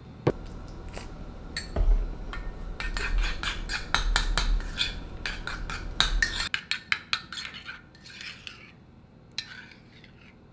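A few knocks, then a long metal spoon stirring thick mayonnaise sauce in a small ceramic bowl, scraping and clinking against the sides. The stirring is busiest in the middle and eases to lighter taps and scrapes before stopping near the end.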